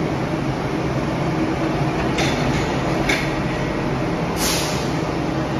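Bombardier Innovia APM 100 people mover humming steadily at the platform as its doors and the platform screen doors close before departure. There are short hisses about two and three seconds in, and a longer, louder hiss about four and a half seconds in.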